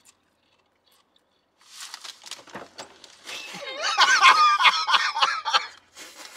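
Potato chips crunching as they are bitten and chewed, then a man laughing loudly about halfway through.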